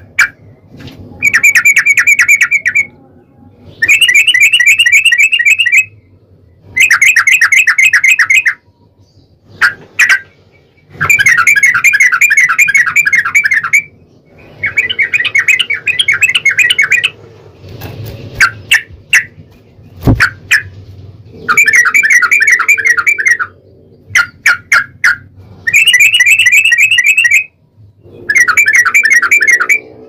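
Yellow-vented bulbul song: long phrases of fast, evenly repeated notes, each lasting a couple of seconds, alternating with short bursts of a few sharp notes. A single low thump comes about twenty seconds in.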